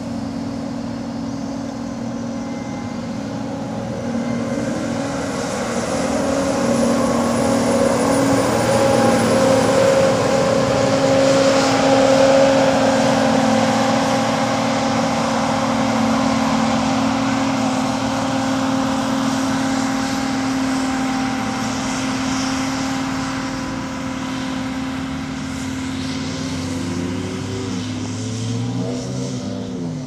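John Deere C670i HillMaster combine harvester running while harvesting wheat: a steady engine and machinery drone. It grows louder to a peak about twelve seconds in, then slowly eases off, with the pitch wavering a little near the end.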